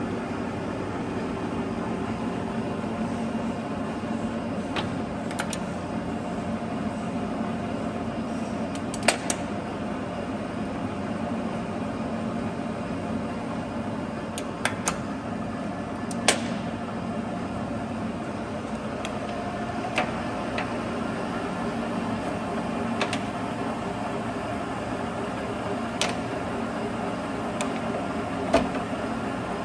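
19 x 72 LeBlond engine lathe running under power, a steady hum from its geared headstock and leadscrew drive with the carriage feeding on the half nut. Sharp clicks and clunks come now and then as the apron levers are worked.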